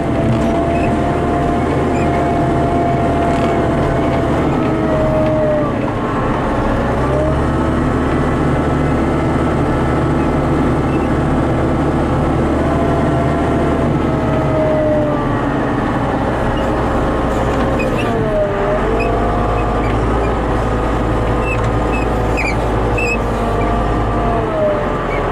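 Diesel engine of a loader running steadily, heard from inside the cab, its speed dropping and picking back up several times as the machine works.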